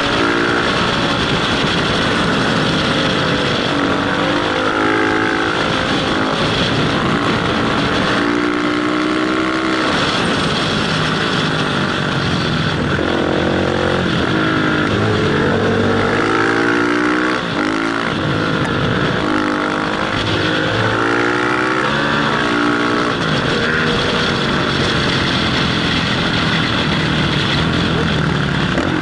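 Motorcycle engine revving up and dropping back again and again as the rider accelerates and shifts gears, with a steady rush of wind on the helmet.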